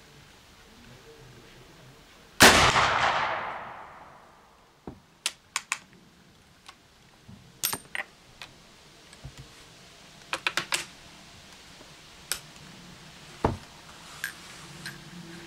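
A single shot from a Model 1873 Trapdoor Springfield rifle in .45-70, about two seconds in, its report dying away over about a second and a half. Then a scatter of short sharp metallic clicks as the hinged breechblock is flipped open and the action is handled.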